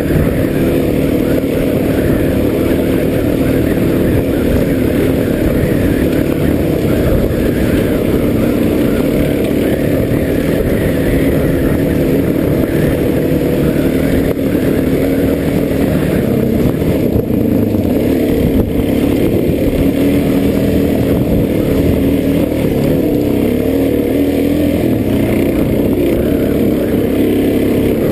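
Off-road dirt bike engine running at close range as the bike rides a trail, its pitch rising and falling with the throttle.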